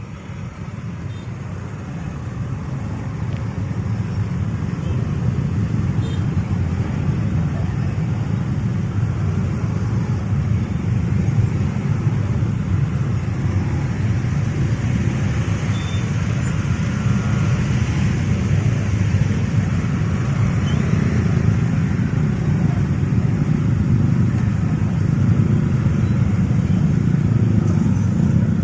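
Low, steady rumble of a moving vehicle, growing louder over the first few seconds and then holding steady.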